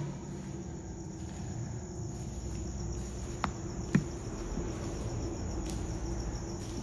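Insects chirping in a steady, high, even trill, with two sharp clicks about half a second apart just past the middle.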